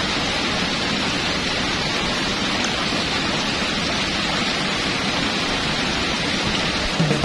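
Steady rain, an even hiss.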